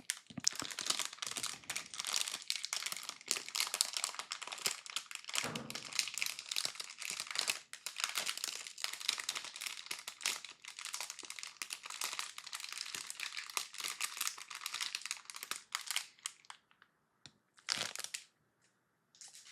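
Plastic bags of LEGO pieces crinkling as the pieces are emptied out, with many small clicks of the plastic bricks. It goes on densely until about three-quarters of the way through, then only two brief rustles follow.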